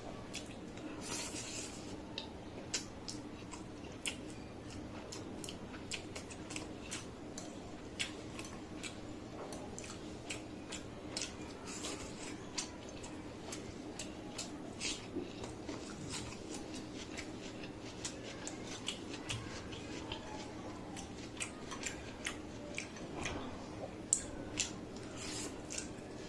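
A person chewing and biting food close to the microphone: a steady stream of short, wet mouth clicks and smacks, several a second, with a few louder bites, over a faint steady hum.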